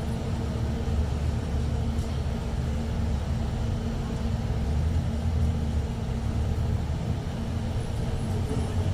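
Steady low rumble of road traffic, even throughout with a faint constant hum.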